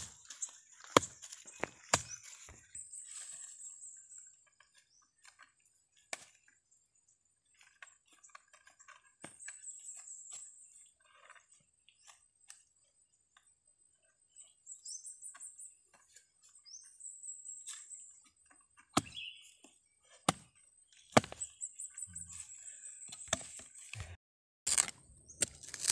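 Machete blade chopping into dry soil and roots around a shrub's root ball: scattered single chops, several in quick succession near the end. Faint high chirping runs behind it.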